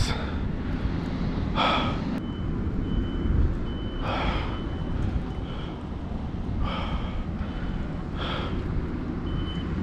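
A man breathing hard, a deep breath every couple of seconds, worked up with adrenaline after fighting a fish. Under the breaths runs a steady low rumble.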